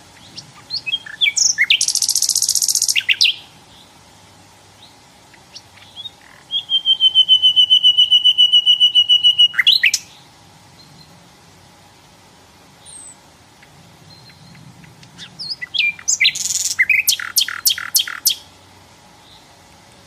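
Sikatan londo (a small flycatcher) singing in three phrases. The first is chirps and a high buzzy trill, then comes a long run of fast, evenly repeated whistled notes, and near the end there are more chirps, a buzzy burst and a quick row of about five sharp notes.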